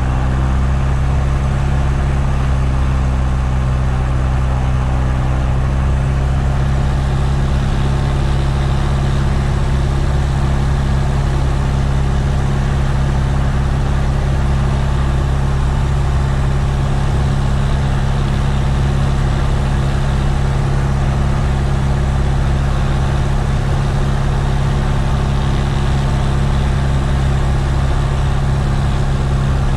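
Piper Warrior's four-cylinder Lycoming engine and propeller running steadily, heard inside the small plane's cabin as a loud, even hum over a wide hiss.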